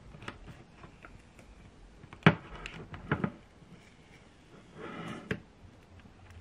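A card tapping and scraping on a phone's cracked glass screen protector while it is being removed: a few sharp clicks about two to three seconds in, the first the loudest, then a short scrape around five seconds in ending in a click.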